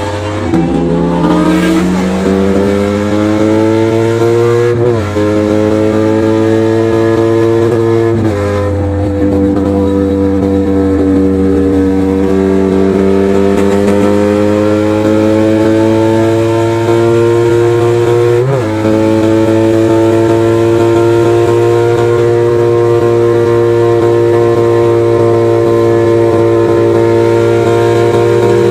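Motorcycle engine with an aftermarket full-system exhaust, accelerating through the gears: the revs climb, drop sharply at upshifts about five, eight and eighteen seconds in, then hold steady at cruising speed.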